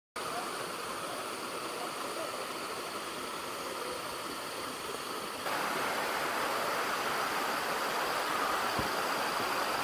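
Steady rush of flowing river water with a thin, high, steady insect whine over it, stepping up a little in level about five and a half seconds in.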